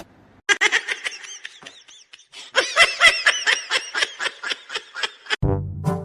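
High-pitched giggling laughter in quick repeated bursts, in two runs separated by a short pause. Brass music starts abruptly near the end.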